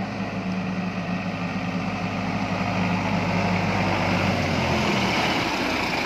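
Tractor diesel engine running steadily and getting gradually louder as the tractor draws close. Its low hum changes a little under five seconds in.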